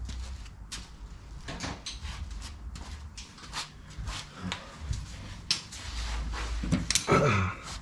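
Irregular light clicks and knocks of hand tools and hardware being handled, with a low rumble underneath at times.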